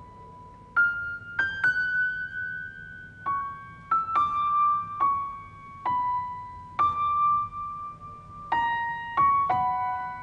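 Slow solo piano melody of single notes, about one a second, each left to ring and fade.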